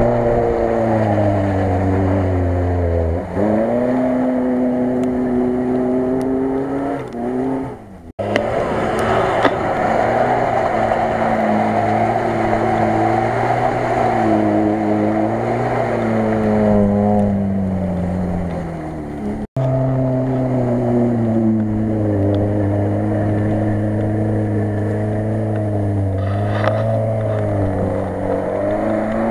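Lada Niva engines revving through mud, pitch rising and falling as the drivers work the throttle. The sound breaks off abruptly twice, about eight and nineteen seconds in, where one car's run gives way to the next.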